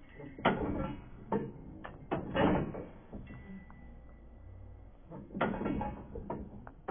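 Playground spring seesaw clunking and creaking as it is rocked: several irregular knocks from its metal seats and spring mount.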